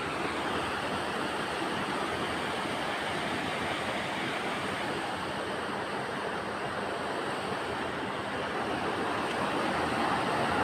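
Sea surf: a steady rush of waves washing ashore, swelling a little louder near the end.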